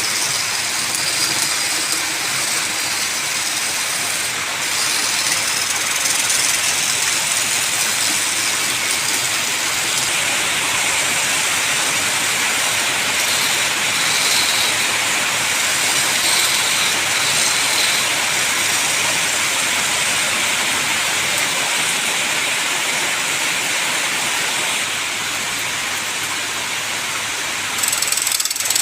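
Wood lathe running, with a steady hiss of the spinning wood being worked with a tool.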